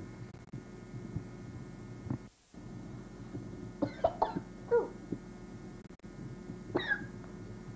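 A few short, sharp vocal sounds: three in a quick cluster about four seconds in and one more near the end, over a steady hum.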